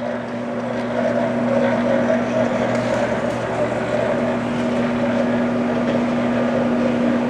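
Hobart V1400 planetary floor mixer, covers off, running with a steady motor hum and gear-drive whir.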